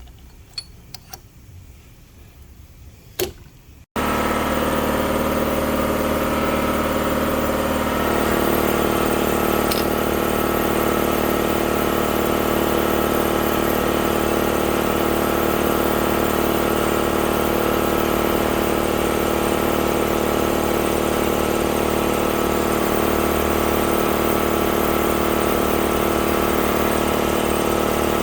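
A few light metal clicks, then, after an abrupt cut, a shop machine running steadily with a hum of several steady tones that grows slightly louder a few seconds later.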